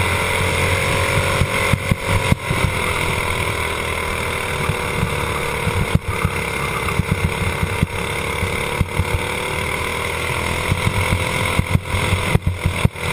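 Racing kart's single-cylinder engine running hard at race speed, heard on board the kart; its pitch sinks and climbs again twice as it slows for corners and accelerates out.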